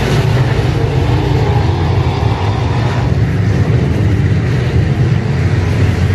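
A field of IMCA Modified dirt-track race cars running on the track, their V8 engines blending into a loud, steady drone.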